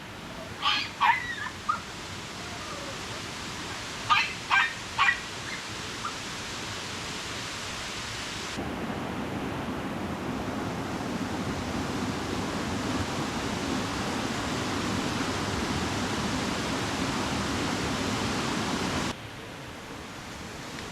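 Puppy yipping in two quick runs of three short yelps early on, over steady rushing water. A little before halfway the water rush turns louder and fuller, then drops back abruptly near the end.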